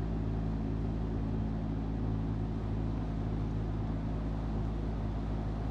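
A steady low machine hum, constant in pitch and level throughout.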